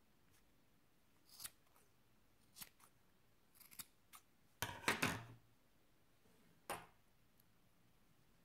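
Scissors snipping through yarn, trimming a pompom: scattered short snips, a quick cluster of several about halfway through that is the loudest, and one last snip a couple of seconds later.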